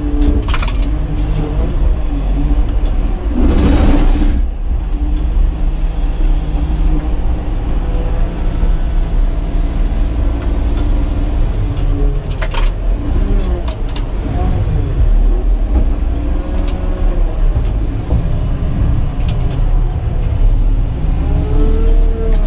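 Caterpillar 120K motor grader's diesel engine running under load, heard from inside the cab, its speed rising and falling as the blade works. A louder noisy stretch comes about four seconds in, and a few short knocks come around the middle.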